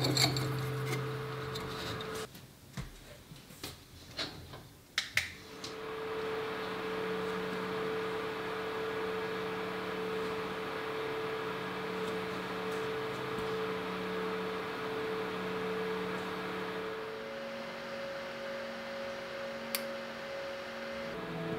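Small USB desk fan running: a steady motor hum under an even airy hiss, the hum stepping up in pitch about three-quarters of the way through. A few light taps and clicks come in the first few seconds, and one sharp click near the end.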